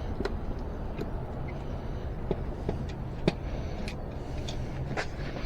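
Scattered light clicks and knocks of metal bike parts being handled as an e-bike wheel is worked back into place, over a steady low rumble.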